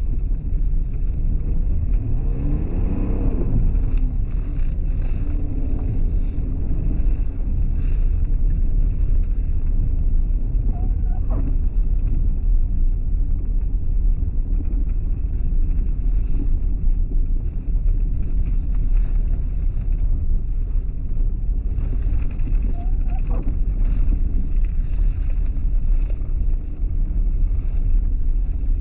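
Steady low rumble of road traffic, with a vehicle accelerating a few seconds in, its engine pitch rising.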